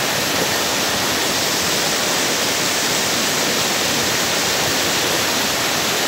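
Floodwater pouring over a dam spillway after heavy rain: a steady, unbroken rush of water.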